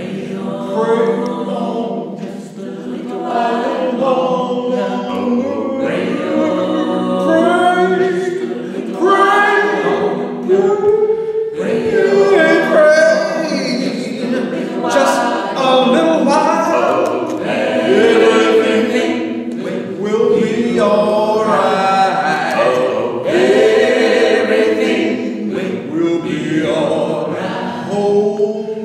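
An a cappella vocal group of male and female voices singing an American spiritual in harmony, without instruments.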